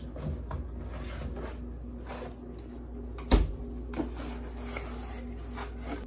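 Rustling and light knocks from taking a cardboard cookie box out of a refrigerator and handling it, with one loud thump a little over three seconds in and a smaller knock about a second later.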